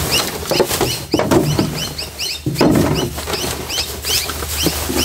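Plastic rubbish bags rustling and crinkling as a gloved hand rummages through them inside a metal dumpster, loudest in bursts about one and two and a half seconds in. Short high chirps repeat several times a second throughout.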